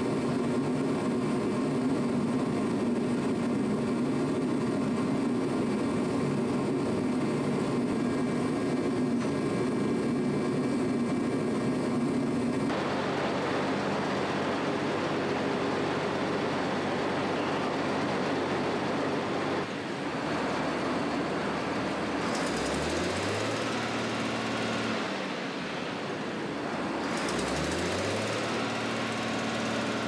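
Steady mechanical running noise of a machine, changing abruptly several times, with two short rising whines in the second half.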